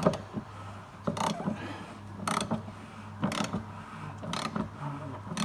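Diesel fuel filter bowl on a Ford Transit Tourneo Custom being screwed back up onto its housing, tight on its thread: short rasping clicks about once a second.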